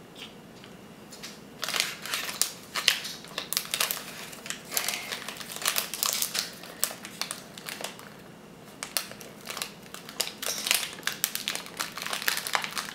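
A small crinkly packet being handled and opened by hand: dense crackling rustles in two spells with a short lull between them.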